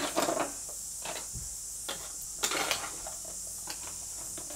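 Steady background hiss with a few light clicks and taps of makeup products being handled, the loudest right at the start.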